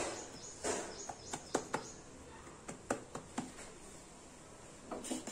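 Hand patting and pressing a floured ball of dough flat on a wooden rolling board: soft pats and rubs with a few sharp taps and knocks scattered irregularly through it.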